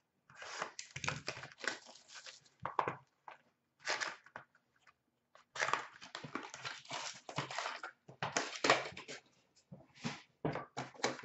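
Trading card packs being torn open and their wrappers crinkled and handled, in irregular bursts of tearing and rustling with a lull about three seconds in.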